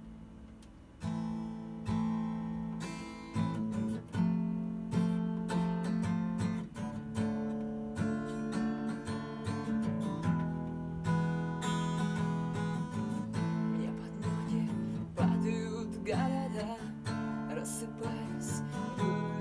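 Acoustic guitar playing the instrumental intro of a song, chords strummed with a regular rhythm, starting about a second in.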